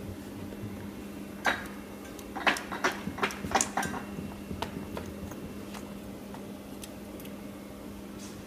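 Sharp clicks and knocks of hands handling the plastic and metal bobbin carriers of a braiding machine, a cluster of them in the first few seconds and fainter ticks after, over a steady low hum.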